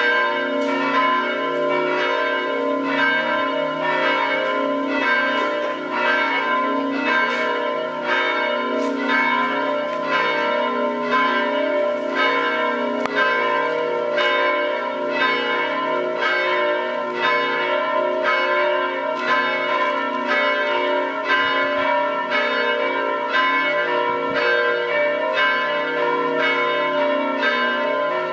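Bells of St. James's Church in Riga pealing continuously, several bells sounding together with a steady stroke about every three-quarters of a second and long ringing overlapping between strokes.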